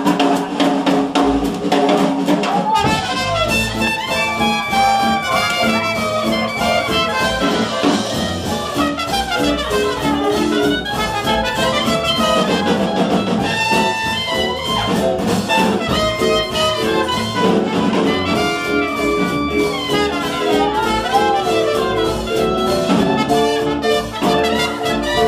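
A hot jazz band playing 1920s-style music, drums at the start, with horns coming in about three seconds in, playing held and sliding notes over a steady beat.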